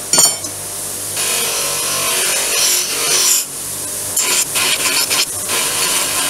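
Ideal Power bench grinder running with a steady hum while forged steel hooks are pressed against its wheel, giving a rasping grind that swells and eases as the piece is moved: the steel is being sanded clean before finishing. A brief metal clatter comes just at the start.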